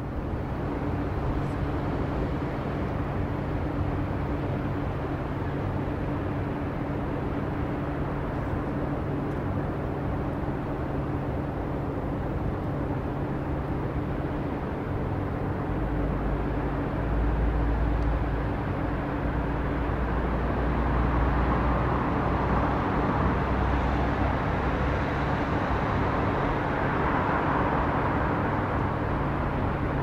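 Building rooftop city ambience: a steady low hum under a constant wash of distant traffic noise. A deep rumble comes in about halfway, and the wash swells louder toward the end.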